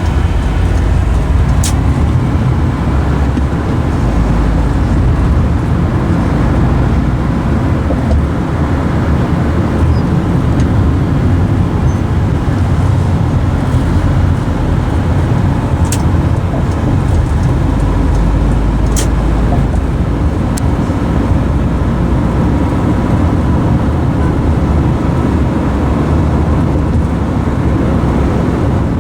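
Steady road and engine noise of a car driving in city traffic, heard from inside the cabin, with a few sharp clicks scattered through it.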